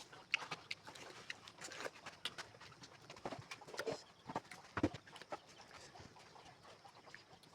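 Close-up eating sounds: irregular wet clicks and smacks of chewing and lips, a couple of them louder about four and five seconds in.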